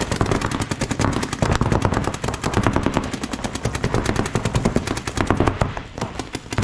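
Paintball markers firing rapid, continuous streams of shots, the pops running close together with no real pause.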